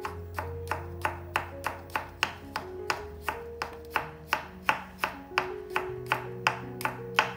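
Hollow-edge santoku knife slicing peeled garlic cloves on a bamboo cutting board, a sharp knock of the blade on the board about three times a second. Soft background music plays underneath.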